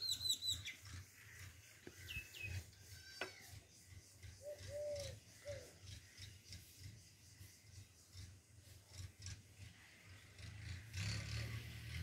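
Birds chirping: a quick run of falling chirps at the start, single chirps about two and three seconds in, and a low cooing call around the five-second mark. A low steady hum comes in near the end.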